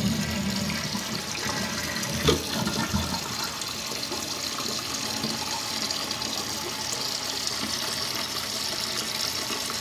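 Mansfield toilet flushing and then refilling, a steady rush of water with one short knock about two seconds in. The flush valve has a newly fitted seal.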